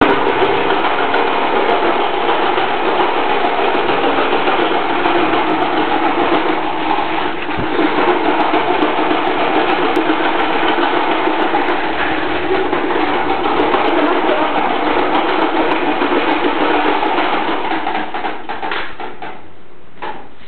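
Electric fan running with a loud, steady mechanical whirring that has a rough, rattly edge; it dies down about 18 seconds in, with a few clicks near the end.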